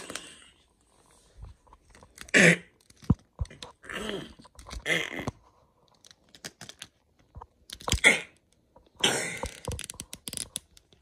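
A child making breathy, voiced fighting sound effects with the mouth, in short bursts. Between them come sharp clicks of plastic action figures knocking on a tile floor.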